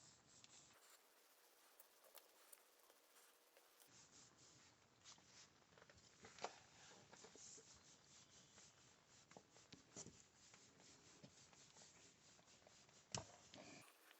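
Near silence: faint rustling with a few small clicks, the sharpest about six seconds in and again near the end.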